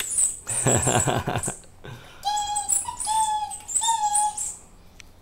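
Pink spiky rubber squeaky ball squeezed three times, giving three steady squeaks of about half a second each, after a short rustling noise near the start.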